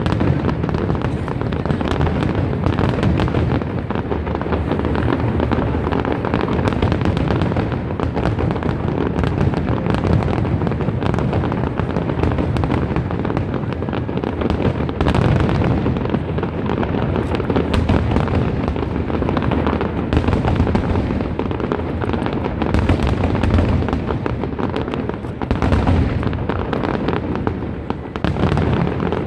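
Aerial fireworks going off in a continuous barrage of booms and crackling bursts, one shell after another.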